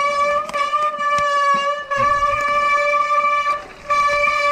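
Mountain bike's wet disc brakes squealing with one steady high-pitched tone, cutting out briefly twice and coming back at the same pitch as the brakes are let off and reapplied. Scattered knocks come from the bike over the rough ground.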